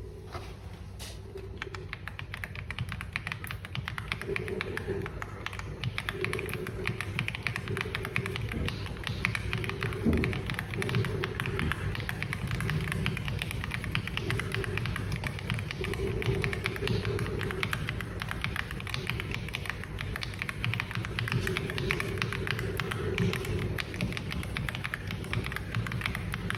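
AULA F99 mechanical keyboard being typed on fast: a dense, continuous run of key clacks.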